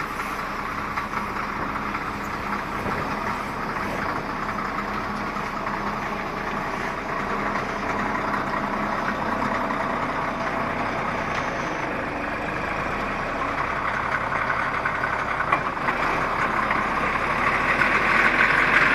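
CAT 14G motor grader's diesel engine running under load while its blade pushes crushed gravel, with a steady rush of gravel rolling and scraping along the moldboard. It grows louder near the end as the machine comes closer.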